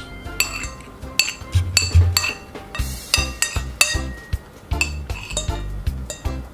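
Metal spoon and fork clinking and scraping against a ceramic plate, about a dozen sharp ringing clinks while the last noodles are gathered up.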